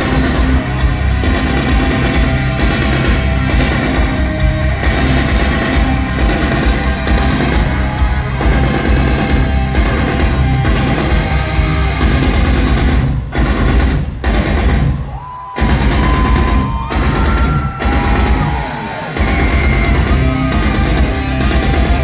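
Loud heavy rock music with drums and guitar, broken by a few short gaps about two-thirds of the way through.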